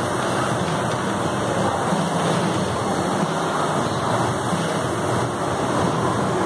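Air rowing machine's fan flywheel whooshing steadily as it is rowed.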